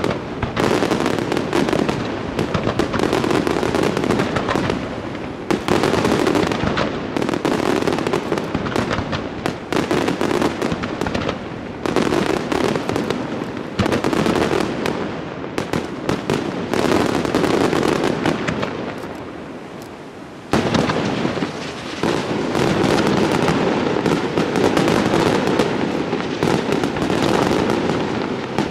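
Fratelli Pannella aerial fireworks display: a dense, continuous barrage of shell bursts and crackle. It eases off briefly about two-thirds of the way through, then a sudden bang starts it up again.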